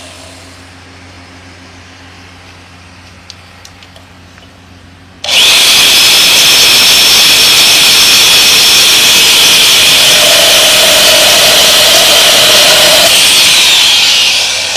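Diamond DFC-20A handheld electric rebar cutter. After a few small clicks, its motor starts abruptly about five seconds in and runs steadily at a loud high whine for about nine seconds. A lower hum joins for a few seconds partway through, and the motor winds down near the end.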